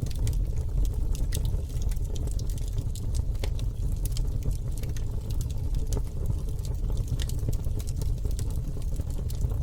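Campfire burning: wood crackling with frequent sharp pops and snaps over a steady low rumble.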